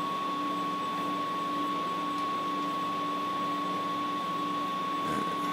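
A steady high-pitched electrical whine over a lower hum and a hiss, from mains-powered electronics on the bench. A faint knock comes near the end.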